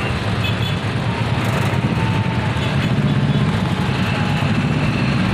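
Vehicle engine running steadily, heard from on board: a constant low drone that keeps the same pitch throughout.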